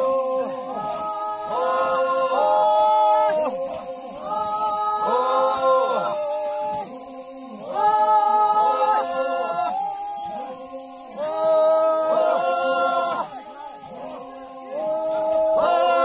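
Several voices singing together a cappella in harmony, in short phrases of held notes with brief breaks between them.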